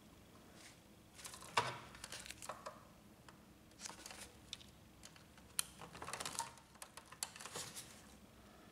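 Faint handling noises from a printer's plastic parts: light clicks and rustles as a small wire connector is worked loose from the power supply and the power supply unit is moved about, with crinkling from disposable plastic gloves.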